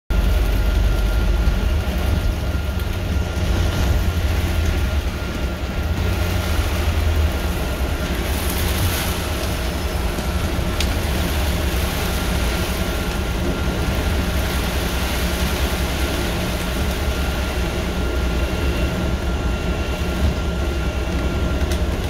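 Inside a moving London bus on a rain-wet road: a steady low rumble of engine and road noise under an even hiss, with a faint steady whine and a few light rattles.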